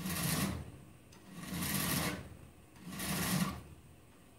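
Mill bastard file scraping across the sawn muzzle face of a steel SKS rifle barrel: three slow one-direction strokes, each about half a second long, one every second and a half. The face is being filed square and flat before sanding.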